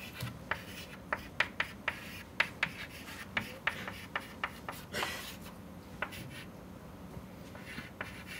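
Chalk writing on a chalkboard: a quick, irregular run of sharp taps and short scratches as symbols are formed, with one longer scrape about five seconds in. A quieter stretch follows before the tapping starts again near the end.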